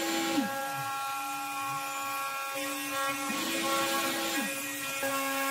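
StepCraft CNC router carving letters into plywood: the spindle runs with a steady high whine. Under it a lower motor tone jumps up in pitch and glides back down twice as the carving head moves.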